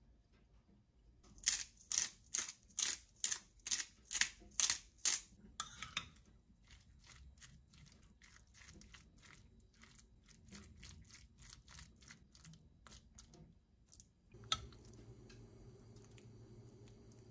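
A spice shaker shaken over a bowl with about nine quick, sharp rattles, about two a second. Then softer scraping and light taps as a spoon stirs mashed avocado in a ceramic bowl. Near the end a click, then a steady low hum.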